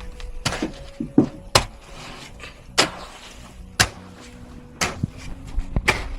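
Irregular sharp knocks and scrapes from hand tools at a building site, about one every second or less, over a low background rumble.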